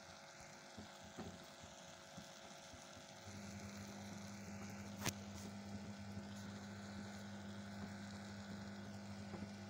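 A low, steady electrical hum that grows a little louder about three seconds in, with one sharp click about five seconds in.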